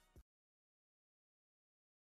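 Silence: a rap beat's last faint drum hit sounds right at the start, then the track cuts off to dead digital silence.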